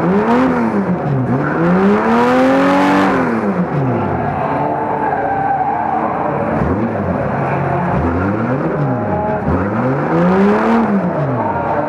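A banger-racing car's engine, heard from inside the car, revved up and down over and over, each rise and fall lasting about one and a half to two seconds, over a harsh rough noise.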